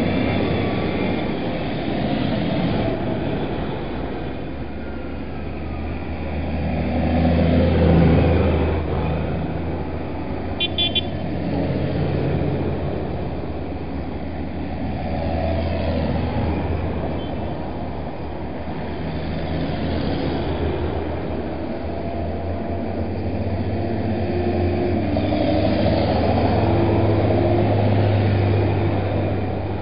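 Diesel engines of large New Holland tractors driving past one after another, the low engine note swelling and fading as each goes by. A short horn toot about ten seconds in.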